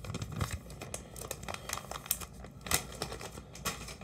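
Plastic lure packaging crinkling and rustling as it is handled, with a run of irregular crackles, the sharpest about three-quarters of the way through.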